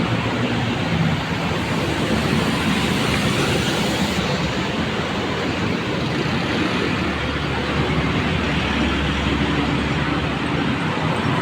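Road traffic: engines and tyres of passing vehicles in a steady wash of noise.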